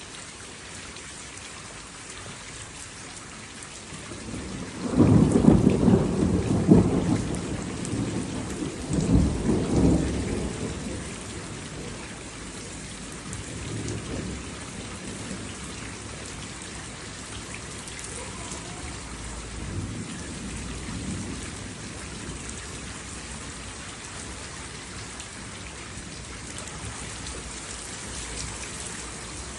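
Steady rain falling with a thunderclap rumbling in about five seconds in, swelling twice and dying away by about eleven seconds, followed by fainter distant rolls of thunder.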